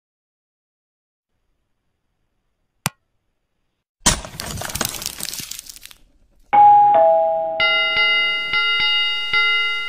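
Outro sound effects: silence with one sharp click, then a breaking-glass shatter about four seconds in. Next come a two-note descending doorbell ding-dong and a bell that rings with repeated strikes.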